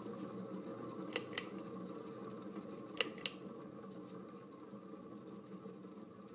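Vintage NuTone Sea Island ceiling fan motor humming with worn-out bearings, growing gradually quieter. Three pairs of sharp ringing ticks come at about two-second intervals.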